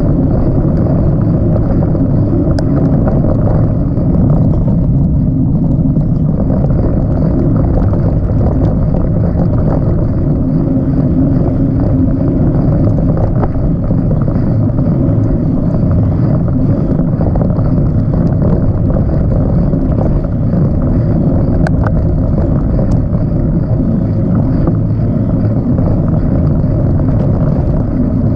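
Steady low rumble of a bicycle ridden over a dirt trail, with tyre noise and wind on the bike-mounted camera's microphone, and a few light clicks and rattles, one a few seconds in and two more past the middle.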